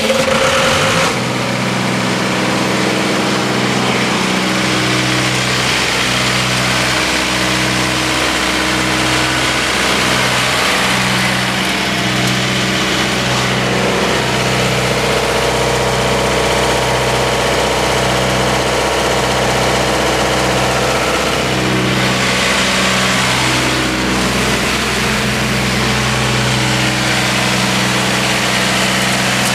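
Cummins 4B3.9 four-cylinder diesel engine of a 35 kW generator set running steadily, having just started. It settles within the first second, then holds an even, loud drone.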